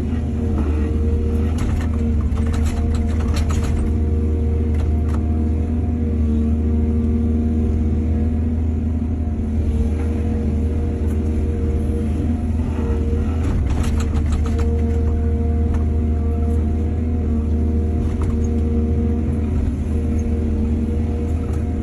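Excavator's diesel engine running steadily under load, with a few short clatters and scrapes from the machine working, about two to four seconds in and again around the middle.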